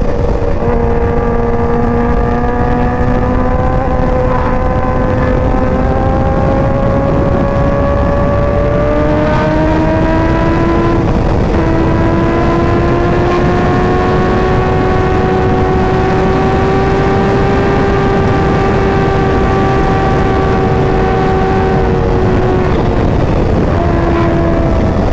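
Yamaha R1's crossplane inline-four, fitted with a Competition Werkes exhaust, running at freeway speed. Its note climbs slowly, changes about nine seconds in, then holds steady, with heavy wind rumble underneath.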